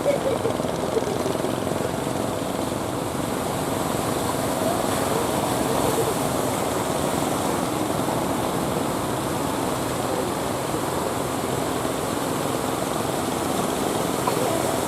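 Steady noise of heavy surf breaking, with the drone of fishing-boat engines and faint distant voices mixed in.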